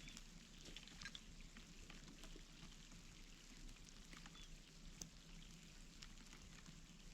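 Near silence, with faint, scattered ticks of light rain falling.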